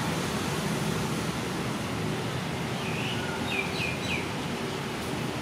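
Steady outdoor background noise with a few short, high bird chirps about three to four seconds in.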